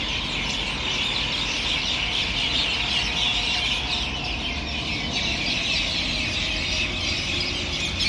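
A dense chorus of many small birds chirping all at once without pause: a flock settling into the trees to roost at dusk. A low steady rumble runs underneath.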